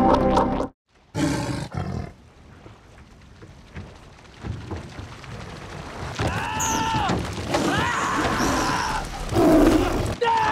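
Bengal tiger roaring and snarling, film soundtrack: three roars that rise and fall in pitch, from about six seconds in, over a steady rushing noise. It starts with music cutting off abruptly just under a second in, followed by a short sharp sound.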